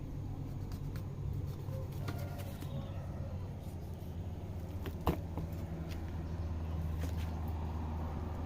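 Steady low engine hum, with a single sharp knock about five seconds in.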